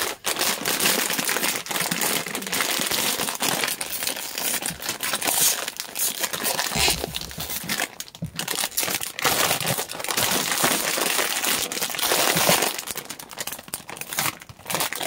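Crinkly snack bag of Chester's Hot Fries crackling and rustling as it is handled and pulled open by hand, a long dense run of crinkling with brief lulls about halfway through and near the end.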